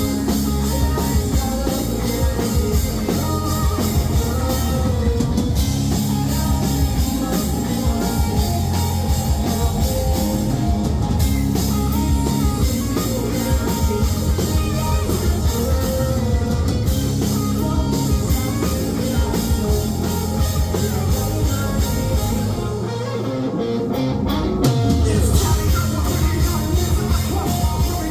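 Live rock band playing loud, with guitars, bass and drum kit. About 23 seconds in, the bass drops out for a moment, then the full band comes back in.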